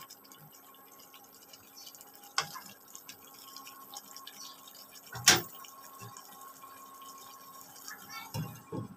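Thick mutton curry simmering and bubbling in a pan while a wooden spatula stirs and scrapes through it, with a sharp knock about five seconds in. Near the end a glass lid is set down on the pan with a couple of clunks, over a faint steady hum.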